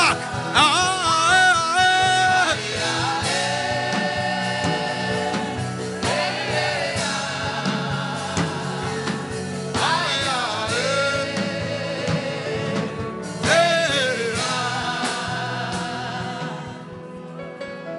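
Gospel worship singing over sustained musical backing, with long held notes that waver in pitch; it fades out near the end.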